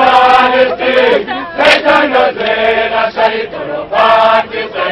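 A crowd of protesters singing a protest song together in unison, in loud phrases about a second long, with a sharp knock about a second and a half in.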